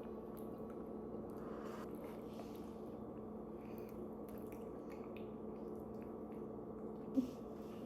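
Quiet room tone: a steady low electrical hum with a few faint clicks and one short sharp tick about seven seconds in.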